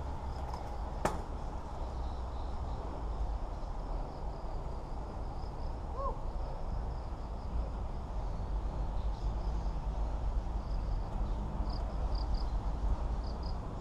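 Outdoor ambience: a steady low rumble with faint, short, high chirps from insects, more of them near the end, and a single click about a second in.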